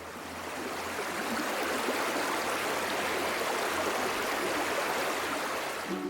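Steady rushing water, fading in at the start.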